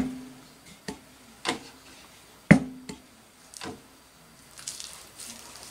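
Unevenly spaced knocks and clicks from objects being handled and set down, about seven of them. Two leave a brief ring after them.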